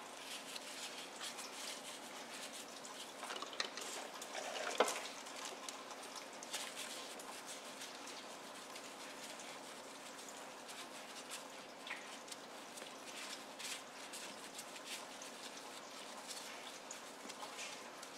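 A cloth rubbing over a plastic toy figure, with soft rustling and scattered light clicks of plastic being handled. There is one louder bump about five seconds in.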